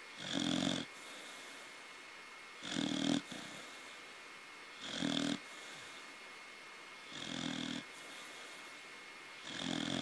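A sleeping corgi puppy snoring, five raspy snores about every two and a half seconds.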